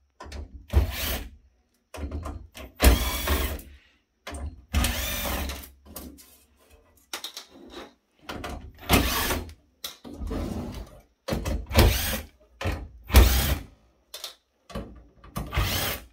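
Small cordless drill/driver backing screws out of a sheet-metal chassis plate, its motor running in a string of short bursts, about fifteen in all, with brief pauses between screws.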